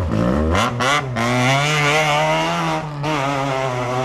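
Rally car engine revving hard as it accelerates away: the pitch climbs in the first second, with a few sharp cracks about a second in, then holds at steady high revs with a brief dip near the three-second mark.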